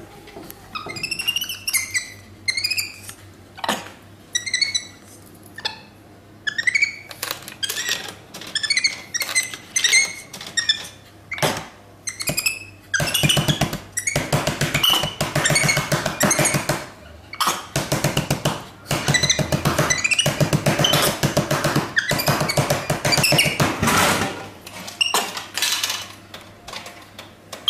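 A monkey's high-pitched calls, short and sliding in pitch, turning from about halfway through into a long run of louder, rapid, harsh cries.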